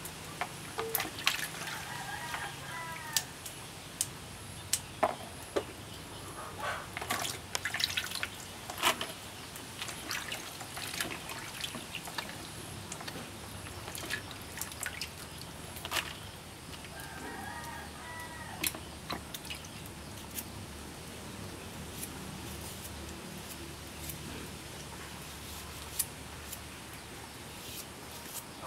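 Water splashing and dripping as yardlong beans and cucumbers are washed by hand in a plastic basin, with sharp taps and clicks as they are lifted out and handled. A chicken calls briefly twice in the background, about two seconds in and again some fifteen seconds later.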